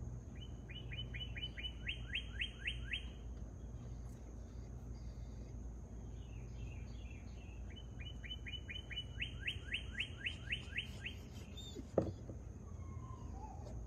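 A bird singing twice, each song a run of about a dozen quick down-slurred notes lasting about three seconds, over a steady low rumble. A single sharp click sounds about twelve seconds in.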